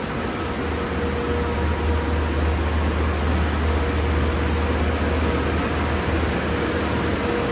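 Express car wash tunnel running: a steady rush of air from the drying blowers over a low rumble and a faint steady whine. A brief high hiss comes near the end.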